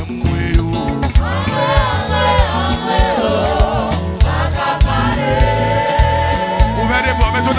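Gospel worship music: voices singing together over a steady drum and bass beat, with one long held note in the second half.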